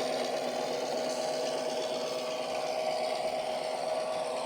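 HO scale model diesel locomotive's sound decoder playing a steady diesel engine sound through its small onboard speaker, with a constant steady tone running under it.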